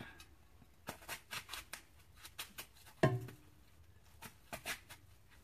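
Kitchen knife slicing through a firm green apple held in the hand, a series of short crisp cutting clicks as the blade bites in, with one louder thump about three seconds in.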